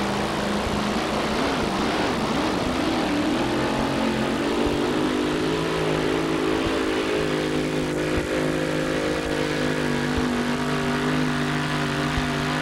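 Supercharged engine of a two-wheel-drive super modified pulling truck running at full throttle as it drags the pulling sled. The revs waver up and down for the first few seconds, then hold steady.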